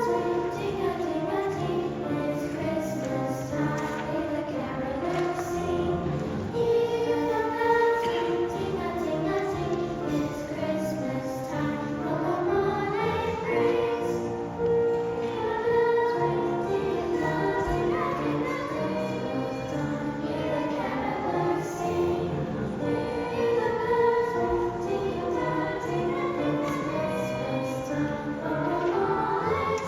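Children's girls' choir singing in unison and parts, holding sustained, melodic lines.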